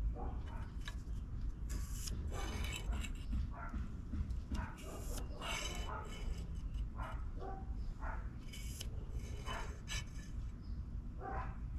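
A steel scribe scraping along a steel bar held in a vise, in repeated short scratching strokes, over a steady low rumble. A dog barks a few times in the background.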